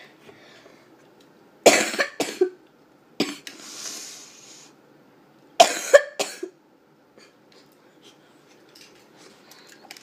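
A person coughing in two short fits, about two seconds in and again near six seconds, each a few quick coughs, with a fainter breath between them.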